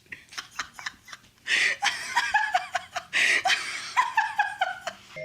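A few short sharp clicks, then from about a second and a half in, laughter in quick runs of notes that fall in pitch.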